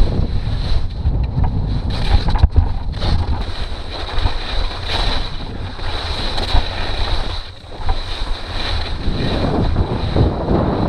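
Wind buffeting the microphone of a skier's body-worn camera during a downhill run, with skis scraping over hard-packed snow. The rumble eases briefly a little past halfway, then picks up again.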